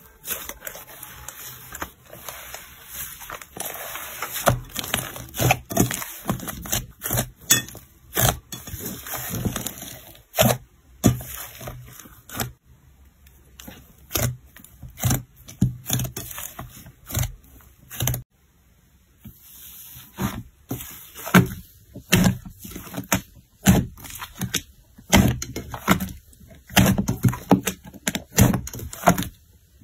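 Hands squeezing and kneading thick foamy slime in a glass bowl, giving dense, irregular crackling and popping as air pockets burst, with soft squelches. There is a short lull about two-thirds of the way through before the crackling starts again.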